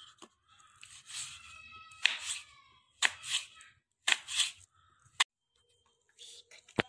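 Kitchen knife slicing through raw potato on a wooden cutting board: a series of crunchy cuts about once a second, each ending in a sharp knock of the blade on the board.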